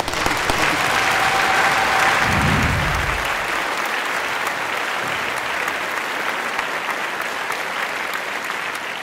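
Audience applauding, a dense crowd of clapping that slowly grows quieter.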